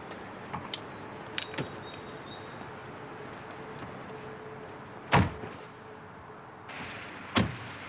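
Two car doors slamming shut, a little over two seconds apart, after a few light clicks.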